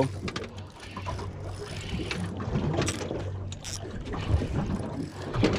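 Spinning reel being cranked to wind in a hooked fish, with scattered clicks and handling knocks, over a steady low hum and wind noise.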